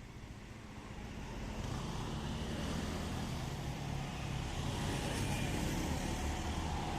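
A road vehicle approaching and passing, its engine and tyre noise growing louder over the first two seconds and loudest about five seconds in.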